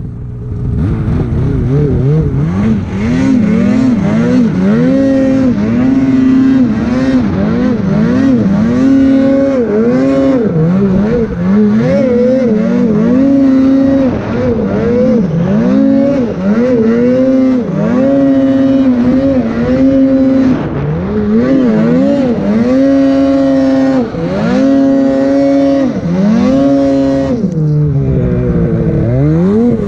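Polaris Khaos snowmobile's two-stroke engine, fitted with a GGB aftermarket exhaust, revving up and down over and over as the throttle is worked in deep powder. Near the end it drops away sharply and climbs again.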